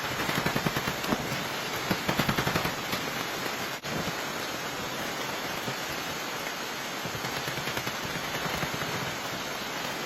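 Heavy rain pattering steadily, with a dense, rapid tapping in the first few seconds.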